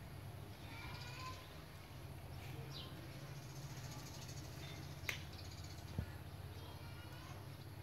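Small birds chirping in short, scattered high calls over a steady low hum, with two sharp clicks about five and six seconds in.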